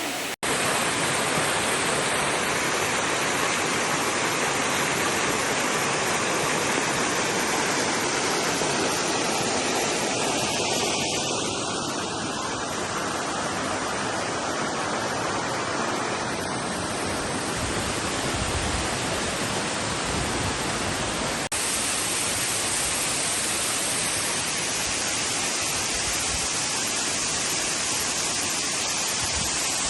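Waterfall rushing close by: a loud, steady roar of falling water. It cuts out for an instant twice, near the start and about two-thirds of the way through.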